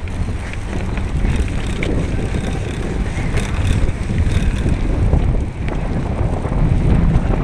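Wind buffeting the camera's microphone while riding a bicycle: a loud, steady low rumble with a few faint rattling ticks.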